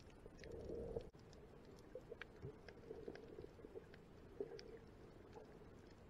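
Faint, muffled underwater ambience: a low rumble of water with scattered small clicks, swelling briefly just before a second in.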